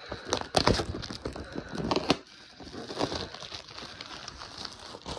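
Wrapping being torn and crumpled off a toy box: irregular crinkling and ripping, busiest in the first two seconds, then softer rustling.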